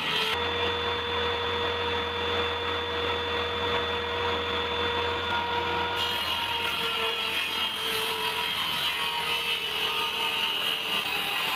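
An electric power tool running steadily while working wood, a continuous whine over noise. Its tone changes abruptly about half a second in and again around six seconds in.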